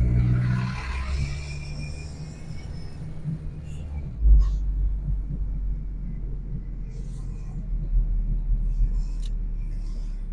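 Low rumble of a car driving through city streets, heard from inside the car. At the start the louder diesel engine of a city bus just ahead fades over the first two seconds, and there is a single thump about four seconds in.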